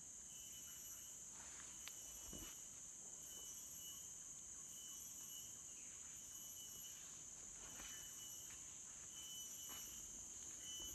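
Insects calling: a steady high-pitched drone with a second, higher call pulsing on and off about once a second.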